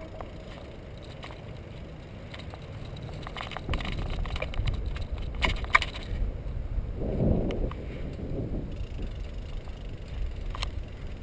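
A bicycle rolling along a paved path, with steady wind rumble on a handlebar-mounted camera's microphone and a few sharp rattles and clicks from the bike over bumps. There is a short, louder rumble about seven seconds in.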